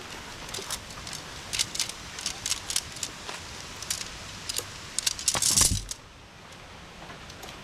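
A series of light, sharp clicks and clinks, like small hard objects being handled, ending in a louder scrape or rustle about five and a half seconds in.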